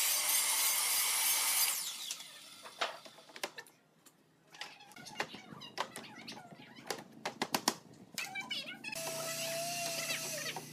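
Workshop sounds: a machine runs loudly for about two seconds at the start, then wooden knocks and clatter as planks are handled, and a machine runs again near the end with a steady hum.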